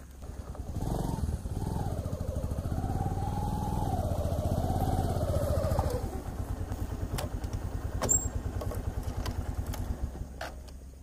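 A motorcycle engine running close by, its pitch rising and falling, then dropping back after about six seconds and fading. A single sharp click comes about eight seconds in.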